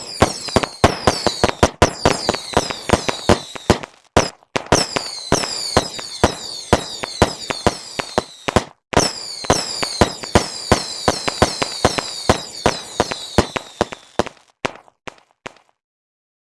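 Fireworks going off in a rapid string of sharp cracks, several a second, with high whistles falling in pitch over them. The cracks thin out to a few last pops about 15 seconds in, then stop.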